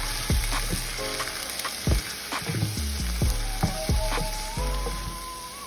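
Broccoli and red peppers sizzling in a pan of vegetable broth as a utensil stirs them, with irregular knocks and scrapes against the pan, over background music.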